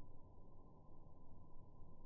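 Faint, muffled background noise with no distinct sound.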